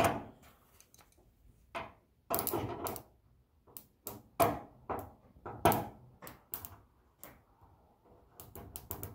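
Irregular sharp metallic clicks and clacks of a wrench against the starter terminals in an engine bay. It is being touched across them to try to make the engine crank, and nothing turns over.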